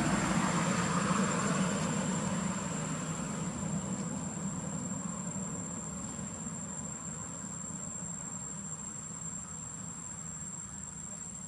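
Insects droning steadily on one high, unbroken note. Under it, a broad rumble of background noise, like traffic, fades away over the first few seconds.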